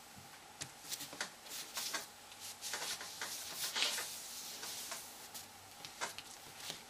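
Hands pressing and rubbing a layered die-cut paper piece down onto a card: irregular paper rustles and light taps, with longer brushing strokes as the palm smooths it flat.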